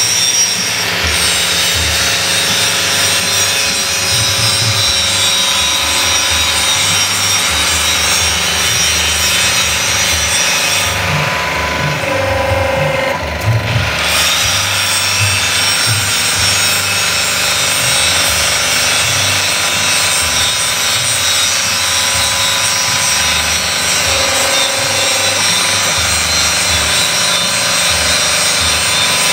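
Hydraulic power pack running: a 5 hp electric motor driving a 6 cc gear pump, with a steady loud mechanical whir and hiss. The hiss thins for a few seconds about halfway through, then carries on.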